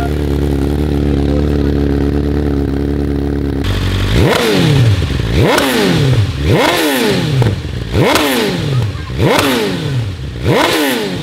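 Inline-four superbike exhaust idling steadily, then, about three and a half seconds in, blipped six times in quick succession, each rev rising sharply and falling back, about a second apart. It is loud enough to read 121 dB on a meter two hand-lengths from the exhaust.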